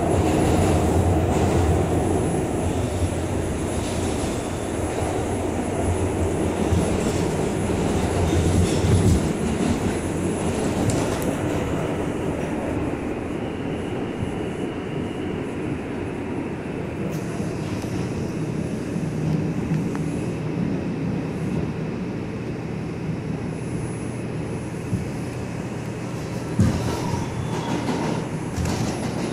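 An R142 subway car running through the tunnel, heard from inside: a steady rumble of wheels on rail with a low motor hum, and a thin high squeal midway. A single knock comes near the end as the train pulls into the station.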